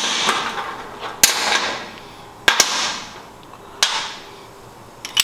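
Sharp metallic snaps from a bolt cutter biting into and cutting the Harley Milwaukee-Eight's steel push rods, about five cracks roughly a second apart, each trailing off in a short ringing.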